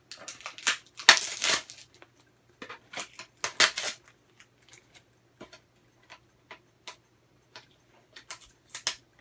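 Plastic packaging being ripped and crinkled off the end of a shipping tube: a run of irregular tearing and crackling bursts in the first four seconds or so, then scattered small clicks and crackles, with another short burst near the end.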